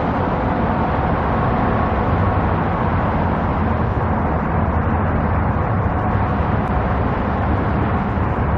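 Steady road-traffic rumble with a low engine hum running under it, unchanging throughout.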